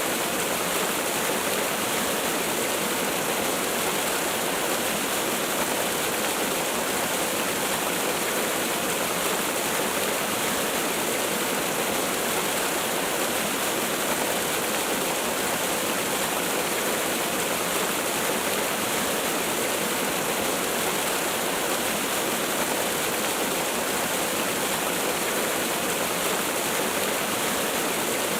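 Waterfall: a steady, even rush of falling water that doesn't change.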